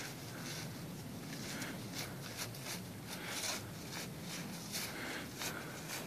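Footsteps of a person walking on snowshoes through deep snow, a quick irregular run of soft steps packing down a trail.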